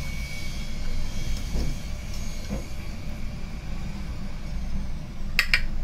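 Steady low rumble of background noise, with two sharp clicks close together near the end.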